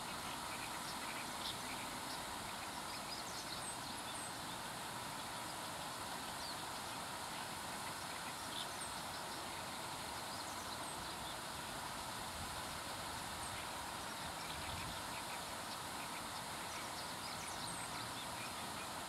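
Steady rush of water pouring and foaming through a river floodgate, with a few faint, scattered high chirps over it.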